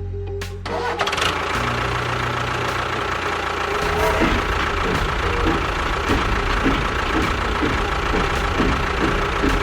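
An engine starts up about a second in and keeps running with a regular pulse of about two beats a second, as background music stops.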